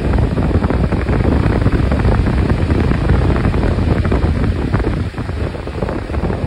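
Wind rushing over the microphone of a moving motorcycle, with the motorcycle's engine and tyre noise beneath it. It eases a little about five seconds in.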